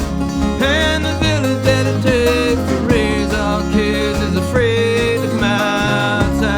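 Country-bluegrass song with acoustic guitar and banjo, and a lead melody line that slides up and down between phrases, with no words sung.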